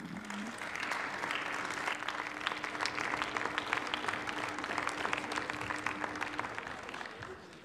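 Members of parliament applauding, a round of many hands clapping that builds within the first second and fades out near the end.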